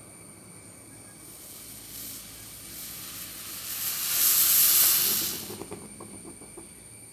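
Milk kashaya coming to a boil in a steel pot on a gas burner. A hiss of rising foam and steam builds over a few seconds, is loudest about four to five seconds in, then cuts off fairly suddenly, followed by a short run of small bubble pops.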